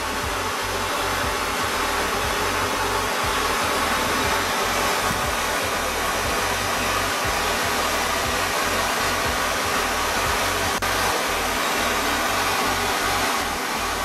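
Steady rushing hiss of a laboratory gas burner's blue flame heating a test tube, with a fluttering low rumble underneath.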